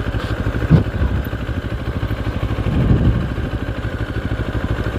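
Morbidelli X-Cape 650 motorcycle's parallel-twin engine running at low revs with a steady, even pulse as the bike rolls slowly.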